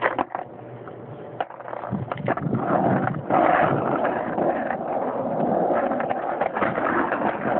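A few knocks, then skateboard wheels rolling on asphalt, a steady rough rolling noise that builds up about two to three seconds in and keeps going.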